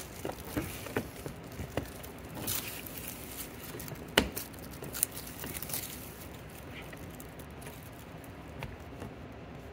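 Hand-handling noise of a plastic bumper light being fitted: a string of small clicks and taps, the sharpest about four seconds in, with light crinkling of the protective plastic film being peeled off its lens. The sounds thin out after about six seconds.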